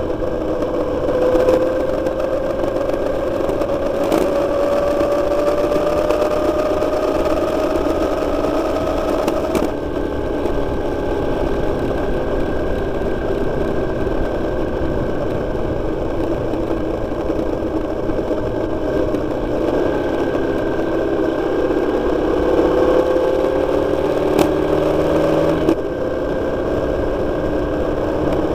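Motorcycle engine running under way, its pitch rising slowly and dropping sharply about ten seconds in, then rising again and dropping a few seconds before the end.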